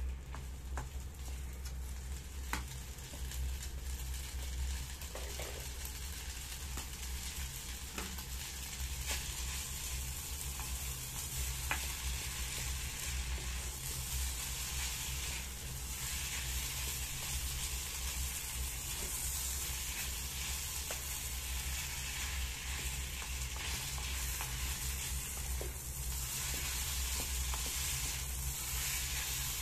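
Nasi goreng (fried rice) sizzling in a small electric pan while a plastic spatula stirs and scrapes through it, with scattered light clicks. The sizzle gets stronger from about halfway on.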